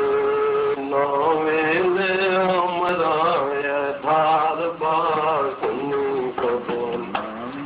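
A man singing a Bhojpuri poem to a slow, wavering melody, held on long notes.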